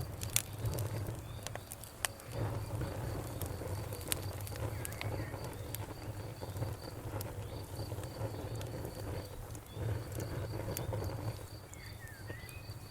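Outdoor wood fire crackling, with scattered sharp pops over a low rumble, while a cricket chirps in a steady, even pulse. A bird gives a few short chirps near the end.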